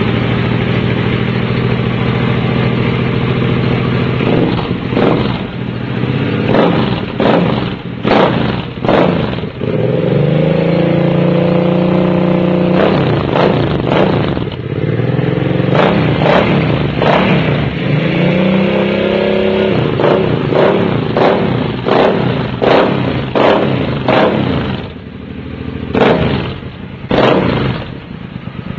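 Suzuki Boulevard 800's V-twin running through a chrome Scorpion aftermarket exhaust. It idles steadily at first, then from about four seconds in it is revved over and over with quick throttle blips, with two longer held revs where the pitch climbs and falls.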